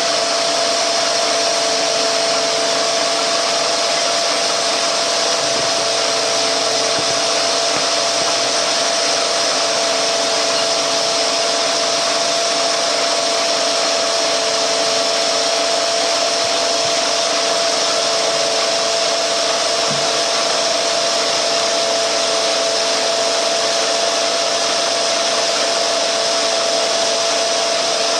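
Milling machine cutting aluminum blocks: a steady, unchanging hiss with a constant whine.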